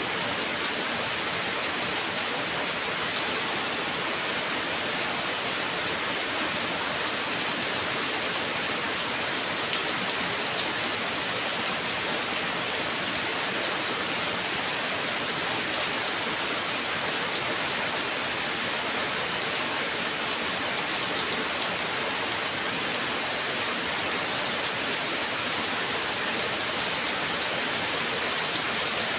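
Heavy rain falling steadily, an even hiss of rain with scattered individual drops ticking.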